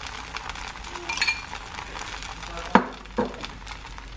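Bánh xèo batter sizzling in a nonstick skillet, with a metal utensil clinking against the pan: one ringing clink about a second in and two sharper knocks later on.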